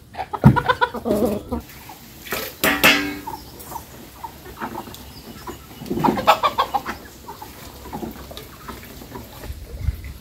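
Chickens clucking and squawking in a few loud bursts, about half a second in, near three seconds and again around six seconds, with quieter clucks between.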